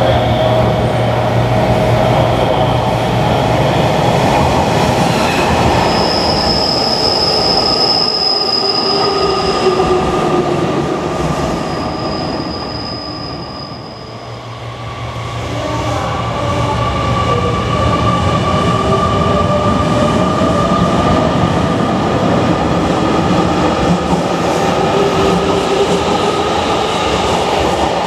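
JR Kyushu 813 series electric train running through the station, its wheels squealing in two long high spells. The sound fades to a lull, then a 787 series electric train comes up and runs past close by.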